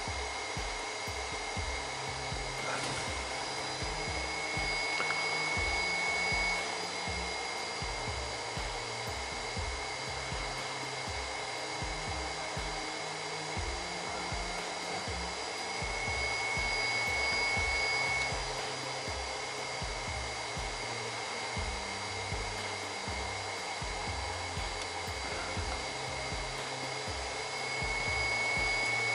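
Background music with a steady beat and a stepping bass line, in which a high held note swells three times, about every eleven seconds. Under it runs the steady whir of the BGA rework station as it heats the laptop GPU to reflow its solder.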